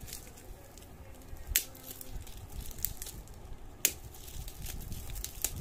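Plastic bubble wrap crinkling and crackling as it is cut and pulled open with a box cutter, with scattered sharp clicks, the two loudest about one and a half and four seconds in.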